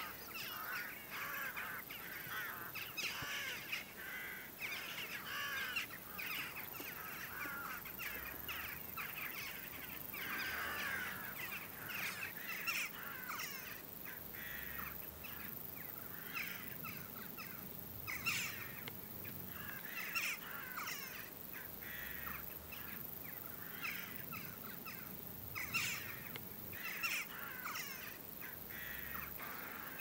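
A large flock of Eurasian jackdaws calling overhead: many short, overlapping calls, denser in some moments and thinner in others.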